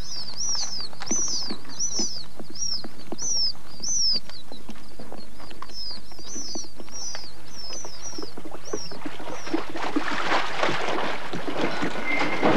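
Young pheasant chicks peeping, a run of short high calls about two or three a second that stops a little after halfway. A rustling, scuffling noise then builds up to the end.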